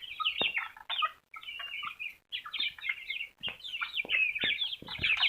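A flock of young chicks peeping, many short high chirps overlapping almost without pause.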